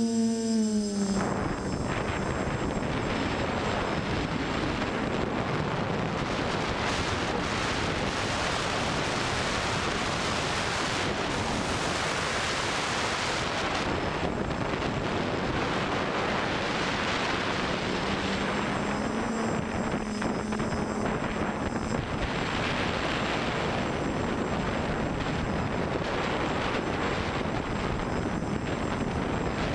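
Armattan Rev2 Tilt quadcopter in flight: the motors and 10-inch propellers drone with a steady rush of air noise at an unchanging level.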